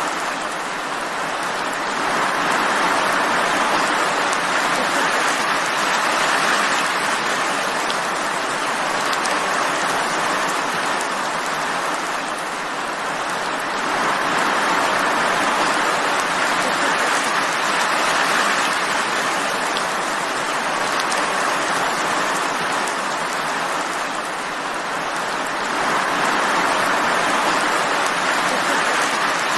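Steady rain falling, an even hiss of drops that swells slightly and eases back about every twelve seconds.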